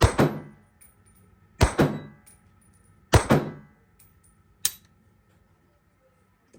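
Gunshots in an indoor range: three shots about a second and a half apart, each followed by a reverberating tail, then a shorter, sharper crack about a second and a half after the third.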